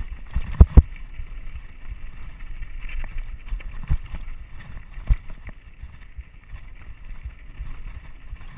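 Mountain bike riding over a rocky gravel trail: a steady low rumble and rattle from the tyres and frame, with sharp knocks as the wheels strike stones. The loudest knocks come just after the start, with others about four and five seconds in.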